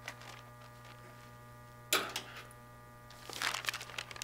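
Steady electrical mains hum, with a sharp rustle of paper being handled about two seconds in and more crackly paper rustling near the end.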